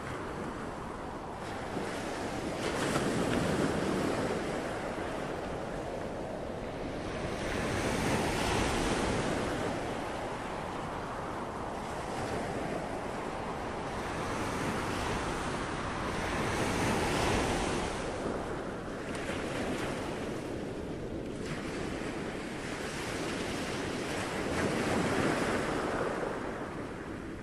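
Ocean surf washing in and drawing back, a rushing noise that swells and eases about every four to five seconds.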